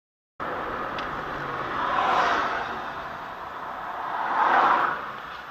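Road and traffic noise picked up by a car's dashcam, cutting in abruptly about half a second in and swelling twice, about two and four and a half seconds in.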